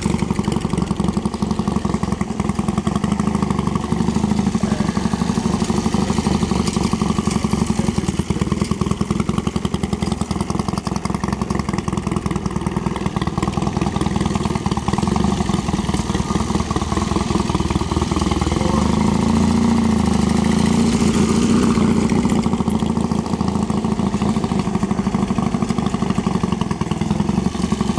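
Triumph Bonneville T140 parallel-twin motorcycle engine running at low speed as the bike is ridden slowly. The note rises and falls once about two-thirds of the way through.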